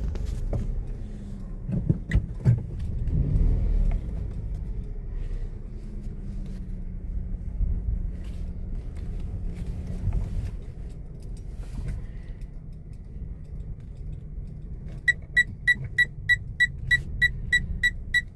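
Low, steady rumble of a car moving, with a few knocks and rattles in the first few seconds. Near the end a rapid, even series of high electronic beeps starts, about four a second.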